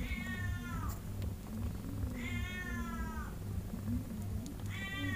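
Newborn kitten mewing three times, each high cry about a second long and falling in pitch; the third begins near the end.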